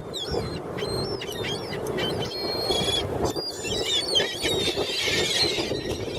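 Many seagulls calling over one another: a stream of short, high cries that bend up and down in pitch, thickest in the second half.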